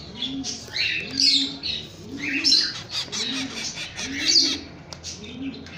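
Rose-ringed parakeet chicks calling: a rhythmic run of harsh calls, about three every two seconds, mixed with higher chirps.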